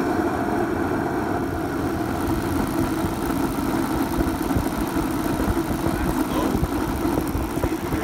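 Remington 35,000–60,000 BTU high-pressure propane forced-air heater running steadily, its fan and burner flame making an even rushing hum, in the first half-minute after lighting while the gas valve button is held in.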